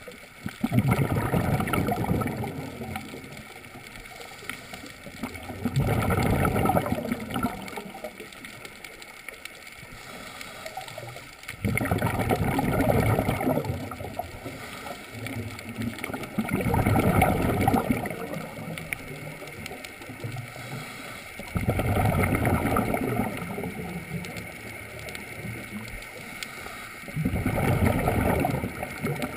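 Scuba regulator exhaust bubbles from the diver's own breathing, heard underwater. There are six bubbly bursts about five seconds apart, each lasting around two seconds, with a quieter steady water hiss between them.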